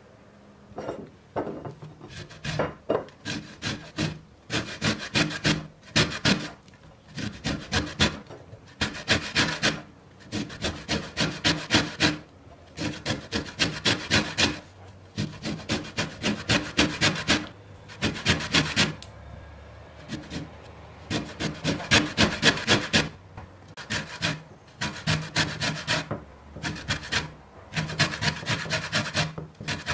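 Rapid back-and-forth scraping strokes, about four or five a second, in runs of one to two seconds separated by short pauses.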